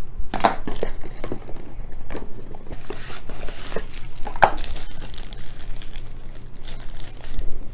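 Soft polyethylene wrapping bag crinkling and rustling in the hands as a dash cam is unwrapped. A few sharp taps and clicks from handling come through, the strongest near the start and about four and a half seconds in.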